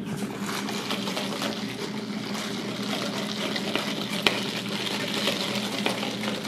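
A straw stirring an iced coffee in a plastic cup, ice clicking and rattling against the sides, over a steady hiss and low hum.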